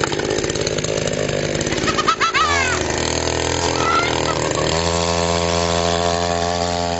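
Red Nagano two-stroke chainsaw running at high revs, its pitch shifting about two seconds in and then holding steady.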